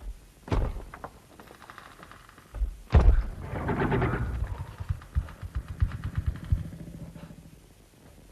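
Heavy crashing impacts in a film soundtrack: one hit about half a second in and a louder one about three seconds in. The louder hit is followed by a rumbling clatter and a run of low thuds that fade away.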